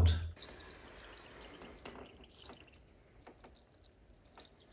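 Faint trickling and dripping of floodwater seeping in through the crack between the skirting tiles and the tiled floor, with scattered small drips.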